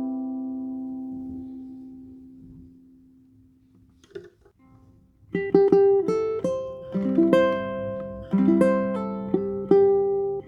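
Tenor ukulele: a chord rings out and fades away over about three seconds. After a short pause, a picked run of single notes and chords starts about five seconds in.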